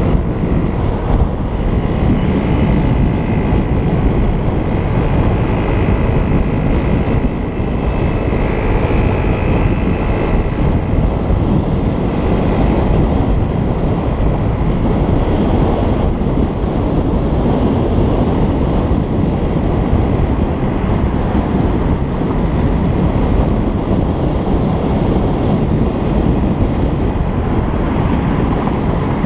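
Steady rush of wind over the microphone on a moving moped, with the moped's engine running evenly underneath.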